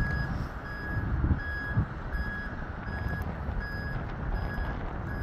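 Semi-truck's backup alarm beeping as the tractor-trailer reverses: a single high tone repeating evenly about twice a second, over a low rumble.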